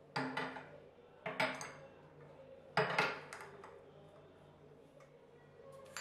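Glass storage jars with glass lids knocking and clinking as they are set down and moved on the shelf: a few sharp knocks, two of them close together about three seconds in.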